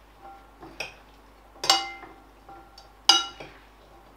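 Salad servers tossing dressed salad in a large ceramic bowl, clinking against its side: a faint clink near the start, then two sharper clinks about a second and a half and three seconds in, each leaving a brief ringing tone from the bowl.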